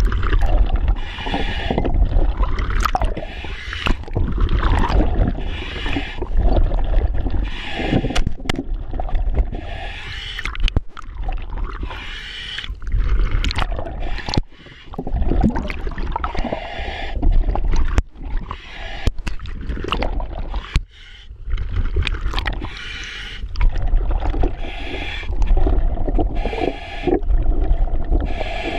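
Scuba regulator breathing inside a full-face diving mask underwater: a hiss on each inhale and a bubbling rumble as each breath is exhaled, repeating every few seconds. A few sharp knocks of hardware being handled come in between.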